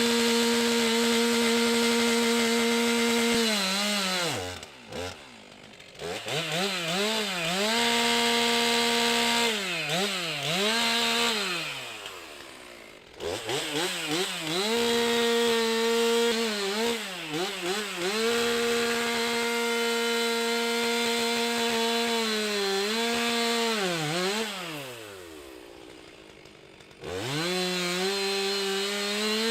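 Stihl MS 362 C-M two-stroke chainsaw held at full throttle, then revved up and down again and again, its pitch sagging and recovering as it cuts wood. It drops back to a quiet idle briefly about five seconds in and again for a couple of seconds near the end before revving up once more.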